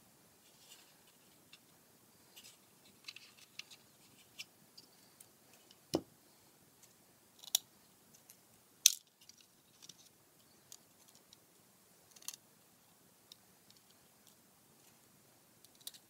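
Scattered light clicks and taps of small wooden blocks and a circuit board being handled and set into a wooden case. A duller knock comes about six seconds in, and the loudest click comes just before nine seconds.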